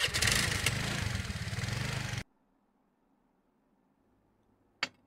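Motor scooter engine starting up and running for about two seconds, then the sound cuts off suddenly; near silence follows, with one short click near the end.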